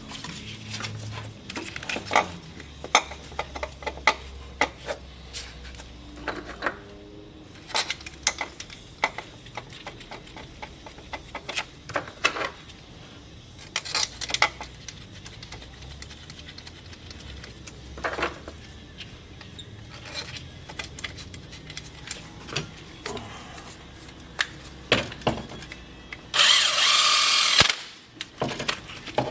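Tools clinking and knocking during hands-on work on a VW Beetle, irregular sharp clicks, with a loud rushing noise lasting about a second near the end.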